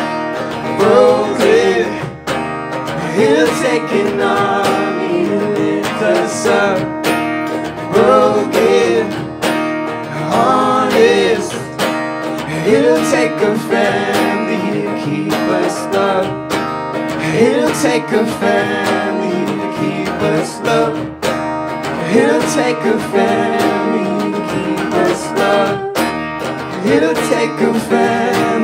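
Music: a strummed acoustic guitar with a voice singing a melody over it.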